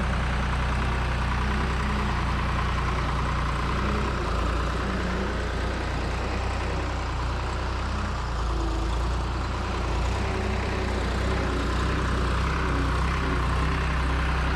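Skid steer engine running steadily under work, with a deep, even hum and small rises and dips in level.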